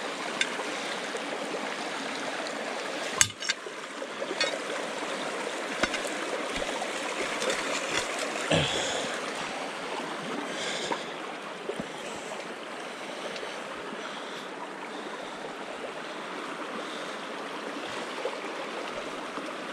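Flowing stream, a steady rush of water over a shallow run. A sharp knock comes a few seconds in and a dull thump with a splash near the middle, as a metal rod is poked about in the water.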